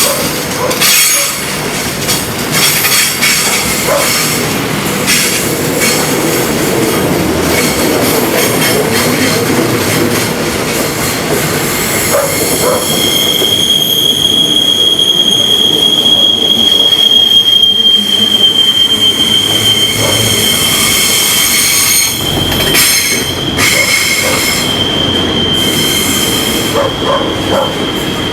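Freight train wagons rolling past, with rumbling and clicking of wheels on the rails. About halfway through, a steady high-pitched wheel squeal sets in and stays.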